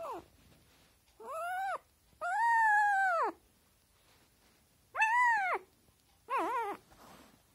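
Very young puppy whining in high-pitched calls: a brief one at the start, then four more, each rising and falling in pitch. The second is the longest, about a second, and the last wavers.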